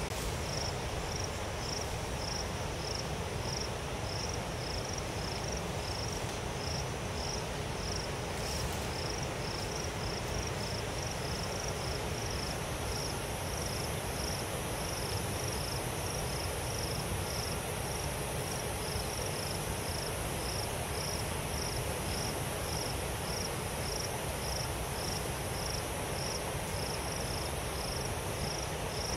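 Cricket chirping in a steady, even rhythm of short high-pitched pulses, a little under two a second, over a constant background hiss and low rumble.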